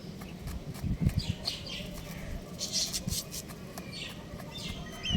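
Young rooster giving short, high chirps and squawks, several of them at irregular intervals, with a few low thumps about a second in.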